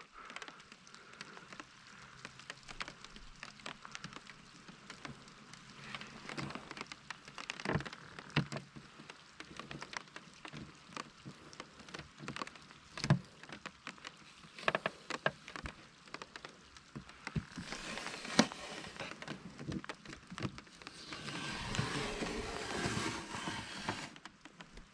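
Rain pattering, with scattered sharp drop hits close by. A hiss of rushing noise swells twice, briefly past the middle and for a few seconds near the end.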